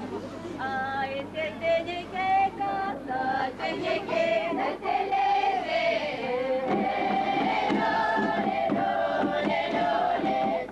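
A mixed choir of women and men singing a folk song together, holding and gliding between long notes; about two-thirds of the way in the singing becomes steadier, with a regular rhythmic pulse.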